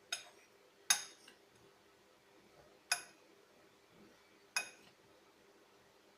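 A spoon clinking against a mixing bowl four times at uneven intervals while cauliflower pieces are stirred to coat them in a cornstarch and chili-powder mix.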